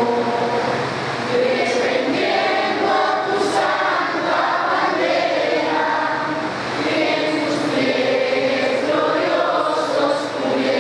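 Group of children and adults singing the national anthem together in unison.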